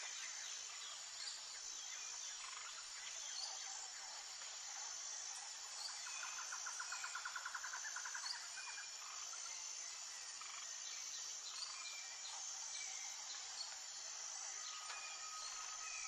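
Faint outdoor ambience of birds calling over a steady high hiss, with short high notes repeating every second or so. About six seconds in comes a rapid trill of about ten pulses a second lasting some two seconds, and near the end a long, level note.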